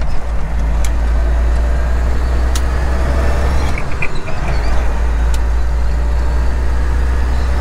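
Steady low drone of a Freightliner Classic semi truck's engine and tyres heard inside the cab while cruising at highway speed. The low drone dips briefly about halfway through, and there are a few faint ticks.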